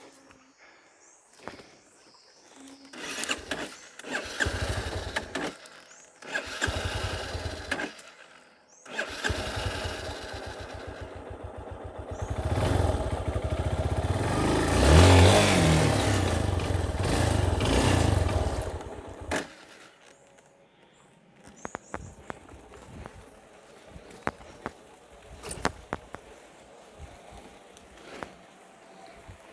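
Small motorcycle engine, revving in two short bursts, then running hard and growing louder to a peak about halfway through before dying away. Scattered faint knocks and clicks follow.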